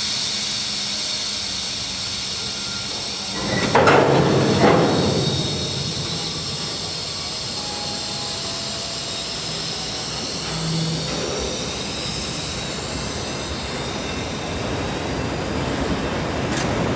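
Empty aluminum-ingot flatcars of a freight train rolling slowly past, steel wheels on the rails with a steady high hiss. Two loud knocks come about a second apart around four seconds in.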